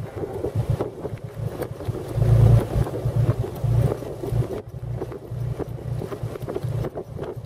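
Wind buffeting the microphone in an open 1917 Buick touring car on the move, with its six-cylinder overhead-valve engine running underneath. The buffeting comes in irregular gusts and is loudest about two to three seconds in.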